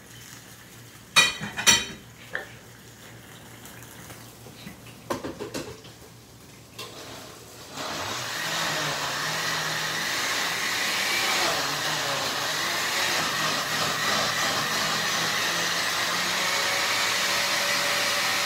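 Two loud clanks near the start and a few lighter knocks, then about eight seconds in an electric blender starts and runs steadily for about ten seconds, blending tomatoes into a salsa.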